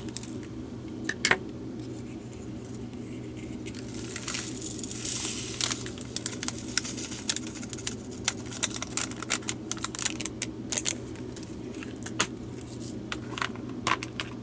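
Small resin diamond-painting drills being poured out of a crinkly plastic packet into a plastic storage container, with a rush of pouring about four seconds in and scattered sharp ticks of drills landing and the bag crinkling.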